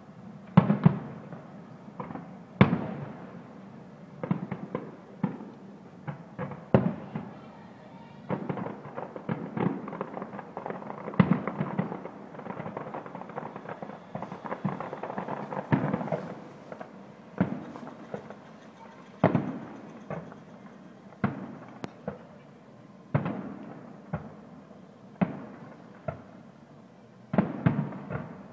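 Aerial firework shells bursting one after another, a sharp boom every second or two, each trailing off in echo. A denser stretch of overlapping bangs and crackle comes in the middle.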